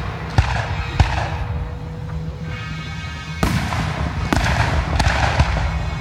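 Aerial fireworks shells bursting overhead in sharp bangs: two in the first second, then a quicker string of four from about three and a half seconds in. A hissing fall-off follows each group.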